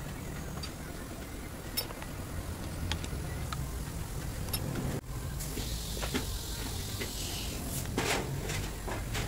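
Light metallic clicks and clinks as bolts on a power steering pump clamped in a vise are worked with a T-handle wrench and a spanner, over a steady low hum. After a cut about halfway through, a few louder metal clatters as the pump is handled.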